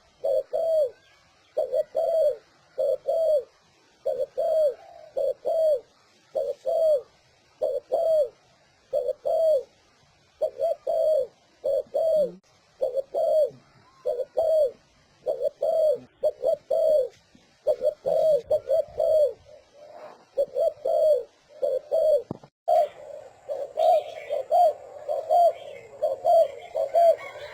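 Spotted dove cooing in quick, repeated phrases of two or three low coos: the fast 'speed' cooing style used as a lure call for wild doves. A little before the end, a noisier recording takes over with the coos coming closer together.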